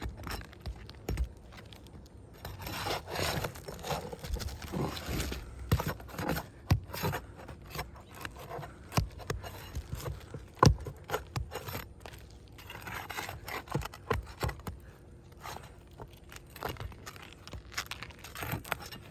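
Asphalt roof shingles being pried and worked loose to get at their nails: stretches of scraping with scattered clicks and knocks, the loudest a sharp knock about ten and a half seconds in.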